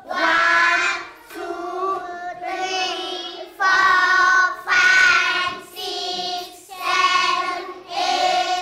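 A class of young children chanting the numbers in English in unison, each number drawn out as a long sing-song call, about one a second.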